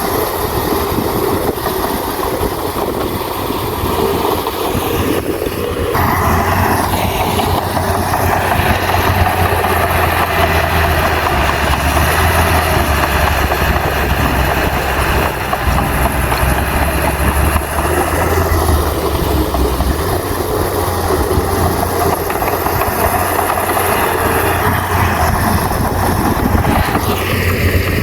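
Heavy diesel engine of a bulldozer running steadily, working harder about six seconds in and easing off again after about twenty seconds.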